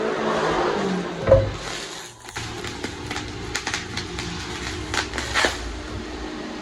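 Soap packaging being opened by hand: a single knock about a second in, then scattered crinkles and clicks of the wrapping, over a steady hum of nearby highway traffic.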